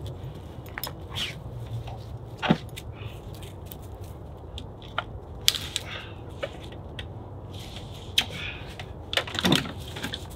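Cut logs knocking and scraping as they are lifted off a hand cart and set onto a woodpile: several sharp wooden knocks with lighter clatter and rustling of dry leaves between them, over a steady low rumble.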